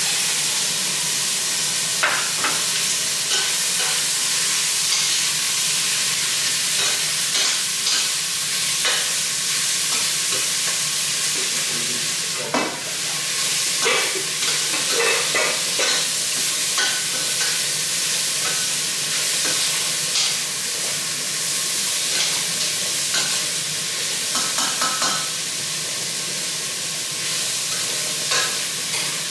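Pork ear pieces sizzling as they sauté in hot oil with garlic, onion and ginger, while a utensil stirs them and knocks against the pot now and then.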